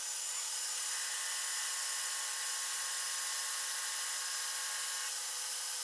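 Small Barker horizontal milling machine taking a test cut in a piece of aluminum: a steady whine of the spindle and cutter with several held tones.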